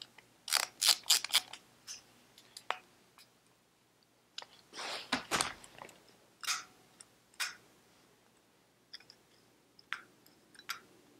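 Small metal parts and a hand tool handled on a workbench: a quick run of sharp clicks and rattles about half a second in, a longer scraping rustle around five seconds, then a few light clicks. The sounds come from a screwdriver being set down and an aluminium carburettor float bowl being picked up and turned.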